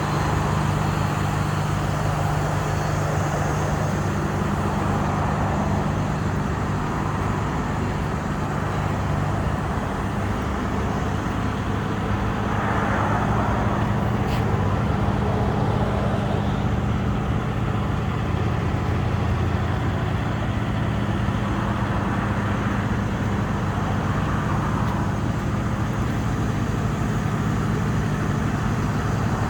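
A vehicle engine running steadily, a constant low hum with a rough wash of noise over it.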